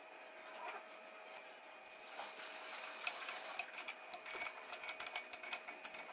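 Wrench clicking on the nut of an engine-mount bolt as it is worked tight, quick irregular metallic clicks several a second from about two seconds in, over a faint steady hum.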